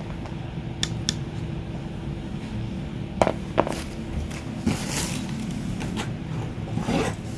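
Scattered light clicks and knocks of hand tools and wire being handled, over a steady low hum.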